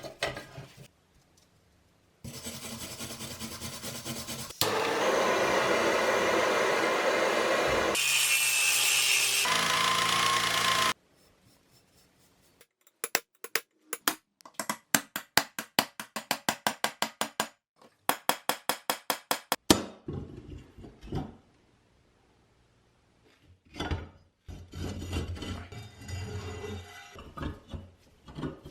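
Workshop tool sounds from restoring a rusty pipe wrench. A loud steady power-tool run that rises into a whine near its end gives way to a run of quick even strokes, about three a second, like filing or sawing, and then to scattered knocks and scraping.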